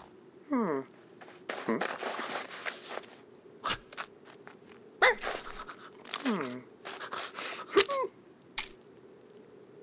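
Cartoon animal voice effects: about five short whining cries that fall in pitch, between crunching steps in snow and a few sharp clicks.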